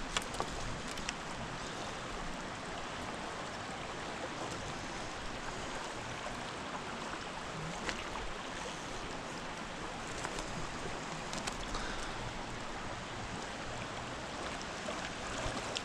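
Steady rush of a flowing stream's riffle water, with a few brief faint clicks.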